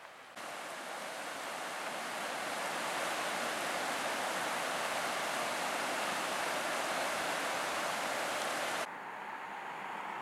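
Shallow mountain river rushing over rocks, a steady hiss of flowing water that starts abruptly about half a second in. It cuts off near the end, leaving a fainter steady outdoor hiss.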